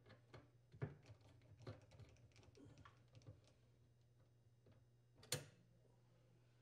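Faint small clicks and scrapes of a screwdriver backing out the dishwasher's mounting bracket screws under the countertop, with one sharper click about five seconds in.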